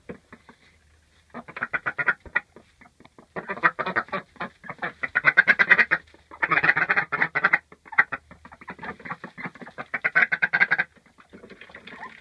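Ducks quacking in fast runs of short quacks, about four bouts of one to three seconds each with brief pauses between.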